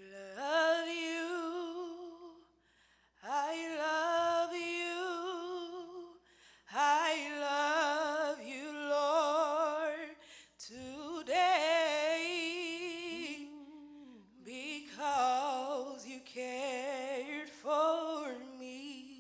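A woman singing a slow, unaccompanied gospel worship melody: long held notes with vibrato, in about five phrases with short breaks between them.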